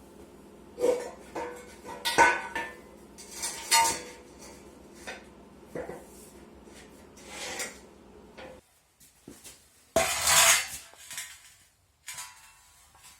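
Metal parts and tools clinking and knocking against each other in a string of separate, irregular clanks, with a longer clatter about ten seconds in. A low background hum cuts off suddenly about two-thirds of the way through.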